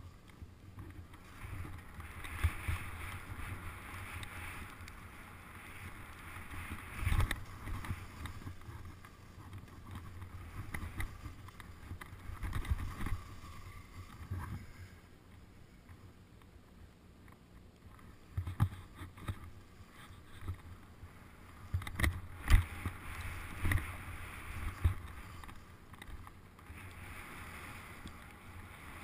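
Skis hissing and scraping over snow on a fast downhill run, with wind rumbling on the microphone and several sharp knocks as the skis ride over bumps, the loudest about two-thirds of the way in.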